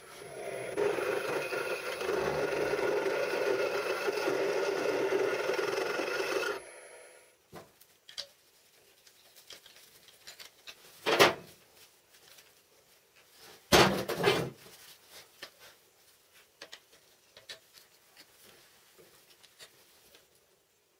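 A power tool working steel runs steadily with a rasping, whining grind for about six and a half seconds, then stops abruptly. After that, steel parts clink sharply twice, with small handling clicks in between.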